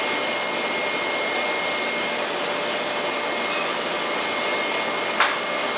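Steady hissing noise of foundry machinery with a faint steady whine, and one sharp knock about five seconds in.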